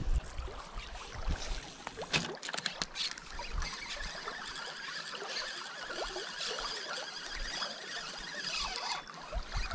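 Riverside ambience: a steady hiss of moving water with scattered faint short chirps, and a few sharp clicks about two to three seconds in.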